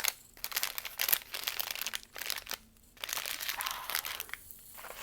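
Packaging crinkling and rustling as items are handled and unwrapped from a box, in two bouts with a short pause between.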